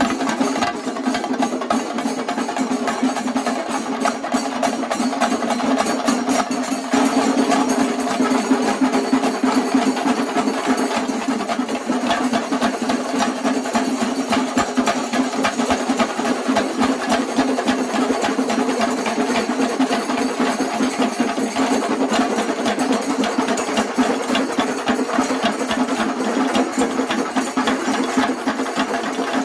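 Shingari melam: two troupes of chenda drums beaten fast with sticks, playing against each other in a face-off, with elathalam hand cymbals. A dense, continuous, rapid drum rhythm that keeps up without a break.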